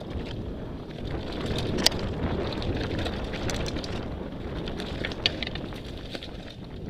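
Merida mountain bike descending a rocky dirt trail: steady rush of wind on the microphone over the rumble and rattle of tyres and frame on the rough ground, with a sharp clack about two seconds in and another about five seconds in.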